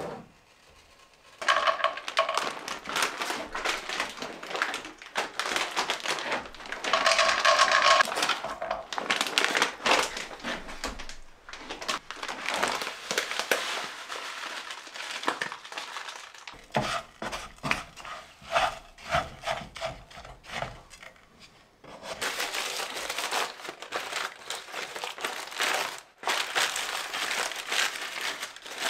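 Dry granola mix (oats and nuts) rustling and scraping in a large frying pan as it is poured in and stirred with a wooden spatula, with a stream of small clicks and short pauses between strokes.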